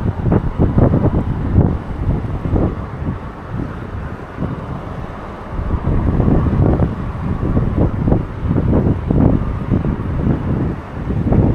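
Strong, gusty wind buffeting the microphone: a loud, irregular low rumble that rises and falls with the gusts and eases for a couple of seconds in the middle.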